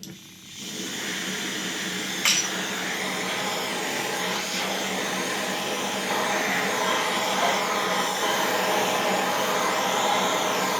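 A motor-driven machine starts up and runs with a steady whir, and a single sharp click sounds about two seconds in.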